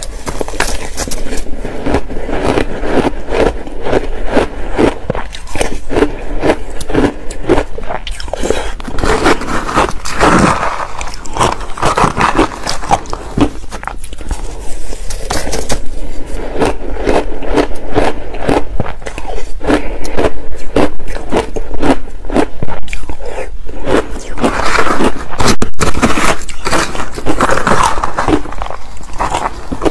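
Crushed ice with passion fruit pulp being chewed, a dense run of rapid, crisp crunches, with a metal spoon scraping and scooping in the bowl between bites.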